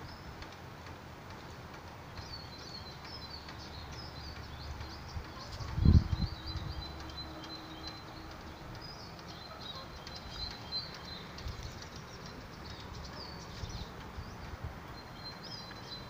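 Small songbirds chirping and singing, with many short high calls and trills. A brief low thump comes about six seconds in.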